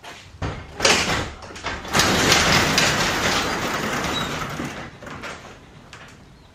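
Sectional garage door being lifted open by hand: a couple of clanks near the start, then the door rattles and rumbles up its tracks for about three seconds, fading out as it reaches the top.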